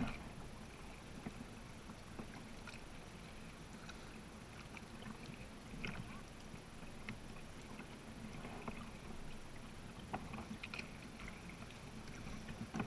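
Kayak paddling on calm water: scattered light paddle splashes and drips with water lapping at the hull over a low steady hiss, with one brief louder sound at the very start.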